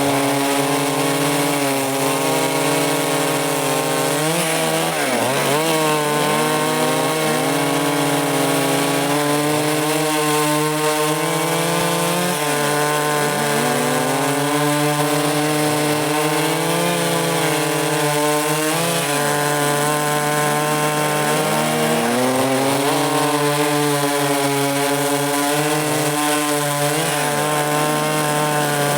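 Stihl MS 382 two-stroke chainsaw with a 24-inch bar running at high revs as it cuts through wood, its pitch dipping and recovering several times.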